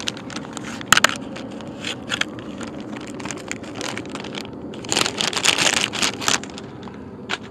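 Crinkling and crackling of a plastic soft-bait bag being handled and opened by hand, with a denser, louder run of crinkles about five to six seconds in.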